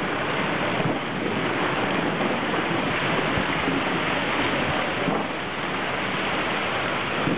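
Steady rushing noise.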